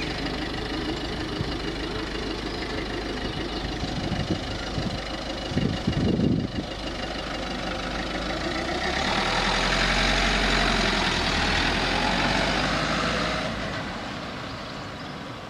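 Citroën C4 hatchback driving slowly at low engine speed. A brief low rumble comes about six seconds in. The engine and tyre noise then swells to its loudest as the car moves past and away, and fades near the end.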